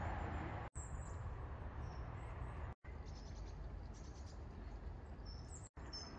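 Faint outdoor ambience: a steady low rumble with small birds chirping high-pitched now and then. The sound cuts out for an instant three times.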